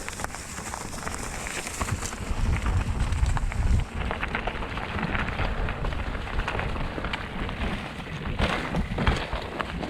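Mountain bike being ridden along a rough trail: wind rumbling on the microphone, loudest a couple of seconds in, with the crackle and clatter of tyres and bike over the ground.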